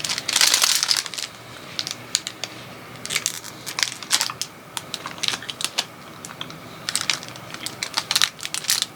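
Plastic protein-bar wrapper crinkling: a loud rustle lasting about a second at the start, then scattered short crackles as it is handled.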